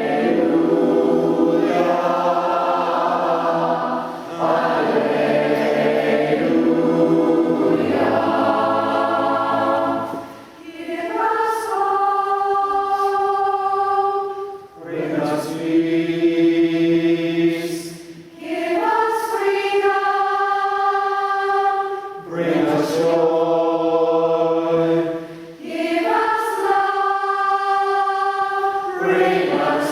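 Community choir singing in several-part harmony, holding long chords in phrases a few seconds long with short breaks between them.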